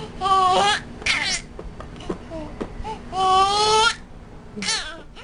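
Baby crying out in loud, high-pitched squealing cries, four in all: one near the start, a falling one about a second in, the longest and loudest about three seconds in, and a short one near the end.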